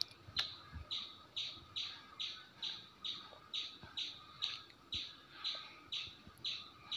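A songbird calling a short, falling whistled note over and over, evenly, a little more than two times a second.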